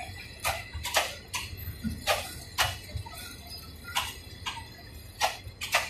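Wheels of slowly passing passenger coaches clicking over rail joints. The clicks come in pairs about half a second apart, one pair every second or two.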